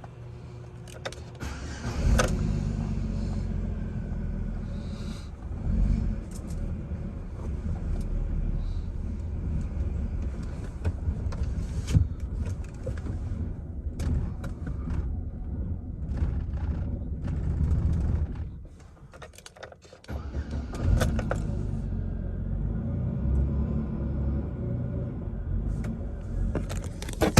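Chevrolet Silverado engine running at a very rough, uneven idle on a nearly dead battery, with scattered clicks and knocks. Its rumble drops away for a couple of seconds about two-thirds of the way through, then runs again.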